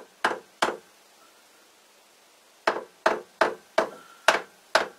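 Light hammer taps on a lathe's loosened top slide, nudging it about a tenth of a millimetre to set it parallel with the bed. Two sharp knocks near the start, then after a pause a run of about seven, roughly three a second.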